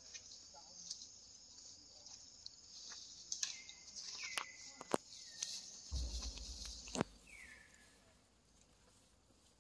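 Steady high-pitched insect chorus, with scattered sharp clicks and a few short falling squeaks. A brief low rumble around six to seven seconds in.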